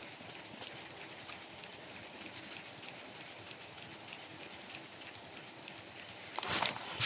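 Spinning reel being wound on a lure retrieve, giving a steady run of light ticks about three a second over a soft hiss. Near the end a loud rustle of handling noise cuts in.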